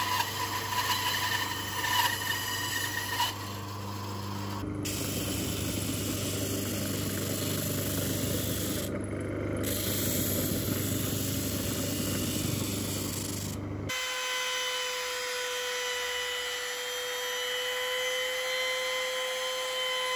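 Three power tools in turn on a hardwood board. First a bandsaw runs and cuts. From about five seconds in a disc sander runs with the board pressed against the disc. From about fourteen seconds in a handheld trim router gives a steady high whine as it runs along the board's edge.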